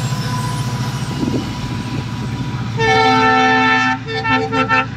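Diesel locomotive's multi-tone horn giving one long blast of about a second, then three short toots in quick succession, over the steady low running of the locomotive's engine.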